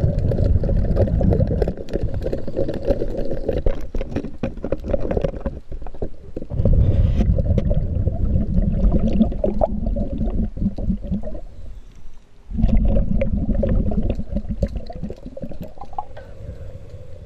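Underwater rumbling and bubbling from a diver's exhaled air, in three long stretches with short pauses for breath about six and twelve seconds in, with clicks and scrapes against the boat hull over it, heard through a camera housing under water.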